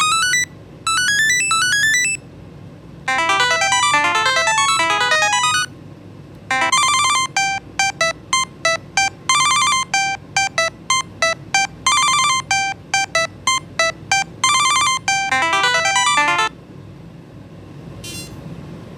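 A Samsung Galaxy SmartTag ringing with its electronic alert melody: runs of rising beeping arpeggios, then quick bursts of repeated notes, which stop near the end.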